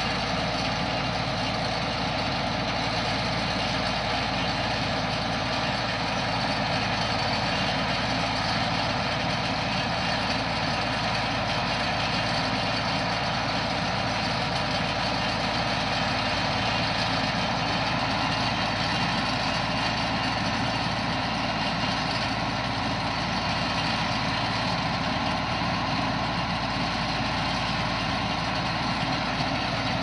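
Heavy diesel engine of farm machinery running steadily at a constant speed, with no revving or change in pitch.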